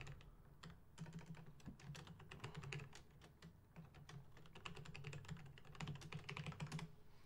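Typing on a computer keyboard: a run of faint, quick keystrokes with brief pauses, entering login details.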